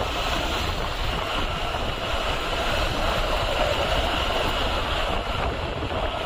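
Steady wind noise on the microphone of a moving motorcycle, with the engine and road noise of the bike running underneath.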